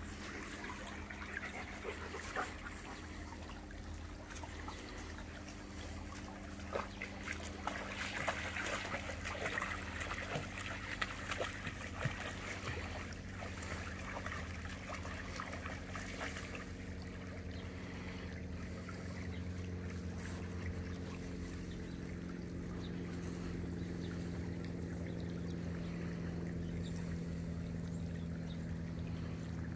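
A dog wading through a shallow, trickling creek, with scattered splashes through the first half. A steady low motor hum runs underneath and grows a little louder in the second half.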